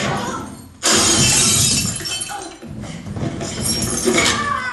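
Glass-shattering crash sound effect: a sudden loud burst about a second in that fades over the next couple of seconds, followed by more clattering noise.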